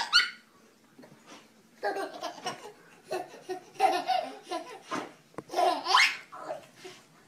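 A baby laughing in short bursts of giggles after a brief pause, with one laugh rising to a high squeal about six seconds in.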